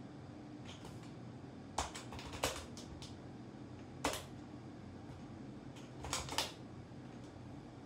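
Keystrokes on a computer keyboard: a scattering of sharp key clicks, some in quick little runs, over a low steady hum.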